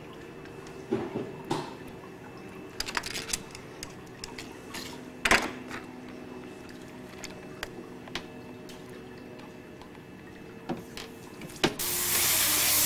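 Scattered light clicks and knocks of a salmon being handled and scraped as it is gutted, over a faint steady hum. Near the end a loud, steady hiss of spraying water starts.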